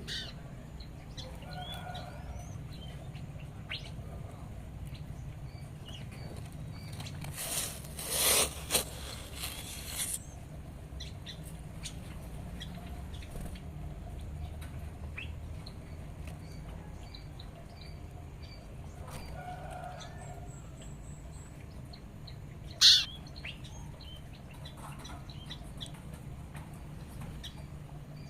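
Small songbirds in an aviary giving faint, short chirps throughout over a low steady hum, with a noisy rustling burst about eight seconds in and a single sharp knock a little before the end.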